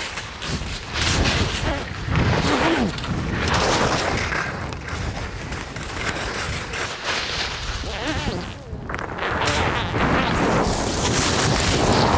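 Skis scraping and carving down a packed snow slope at speed, with wind buffeting the microphone.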